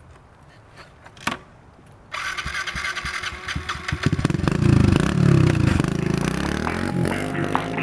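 An engine starts up about two seconds in, after a quiet stretch with a single click, and runs with rising and falling revs, getting louder about four seconds in.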